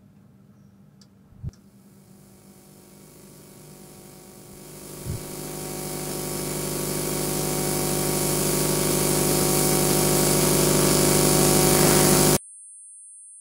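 Sound-design drone in a film score: a dense buzzing, grinding drone that swells steadily louder and brighter, then cuts off abruptly near the end. A low thud comes about a second and a half in and another about five seconds in.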